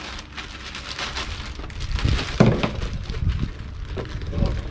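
Clear plastic bag crinkling and rustling as a light bar is pulled out of its wrapping, with a dull knock about halfway through.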